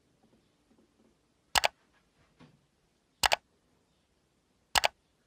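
Three mouse-click sound effects, each a quick sharp double click, about a second and a half apart.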